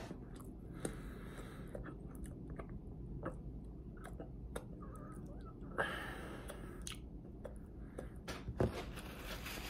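Close-up mouth sounds of someone eating a chocolate éclair: chewing and sucking cream off their fingers, with scattered wet clicks and smacks.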